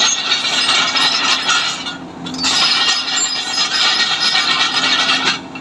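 Hyundai 210 excavator's steel crawler track running over its rollers as the machine travels, a loud grinding, rubbing noise over a steady engine drone. It comes in two runs with a brief break about two seconds in.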